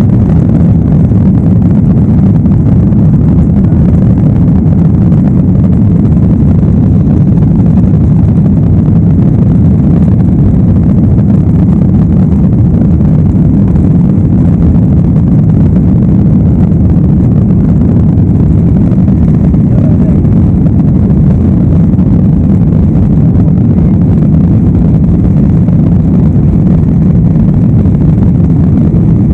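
Boeing jetliner's engines at takeoff power heard from inside the passenger cabin: a loud, steady low rumble that does not change.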